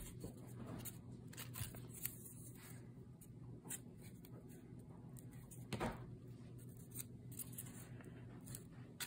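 Faint rustling and light tapping of curled paper strips being handled and pressed down onto a paper base, with a slightly louder tap about six seconds in.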